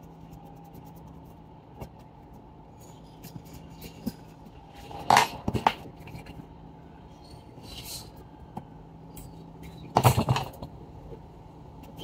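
Small metal tools clinking and clattering on a repair bench in two short clusters, about five and ten seconds in, with lighter ticks between, over a steady low electrical hum.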